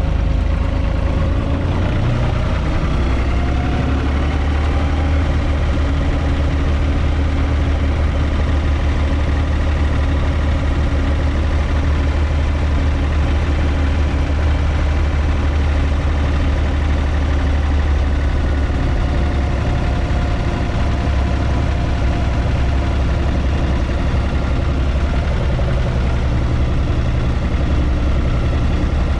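UTB 445 DT tractor's three-cylinder diesel engine running steadily under way, heard from inside the cab as a steady low drone.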